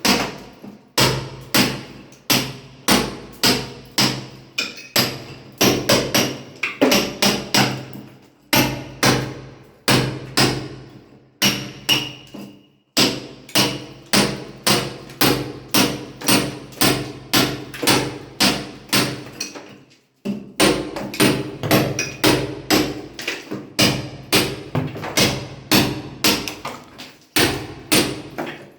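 Hammer blows on masonry, a mason breaking a wall: steady strikes about two a second, each ringing briefly, with a few short pauses.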